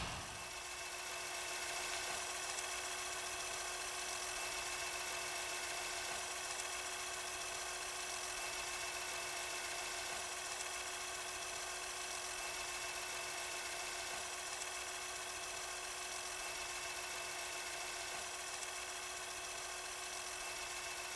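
Cassette deck running a tape: a quiet, steady tape hiss with a faint even motor whir, unchanging throughout.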